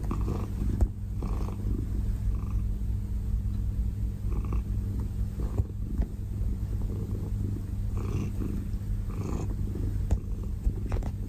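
Domestic cat purring steadily close up while suckling on a knit cardigan, with short soft sucking sounds every second or two.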